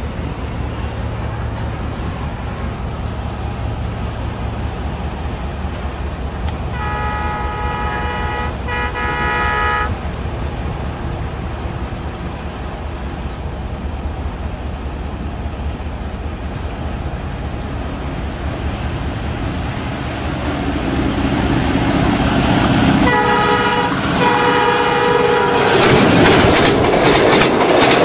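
Diesel locomotive's multi-tone horn sounding two blasts over a steady low rumble, then two more blasts some fifteen seconds later. Near the end a train rushes past close by with loud noise.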